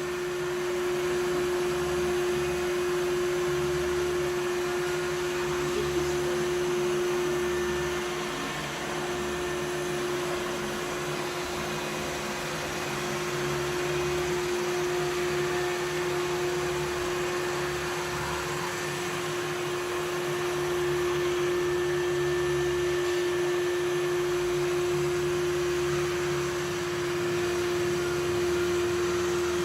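Samsung VR20M7070WD robot vacuum running: a steady motor hum and whine with one constant tone, its level swelling and easing slightly.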